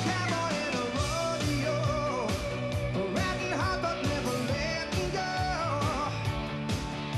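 Background music: a country-rock song with a male singer over guitar, bass and drums.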